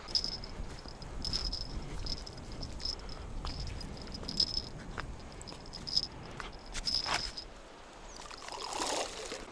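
An insect, cricket-like, giving short high chirps again and again over a low wind rumble, with a few sharp clicks. Near the end comes a brief splash, taken for a fish breaking the surface in the shallows, which the angler guesses to be a carp.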